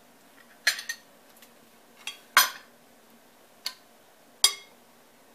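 A spoon clinking against glass and ceramic dishes six times, in short sharp knocks, while sauce is scooped out and dropped into a ceramic baking dish. The louder clinks come about two and a half seconds in and near the end.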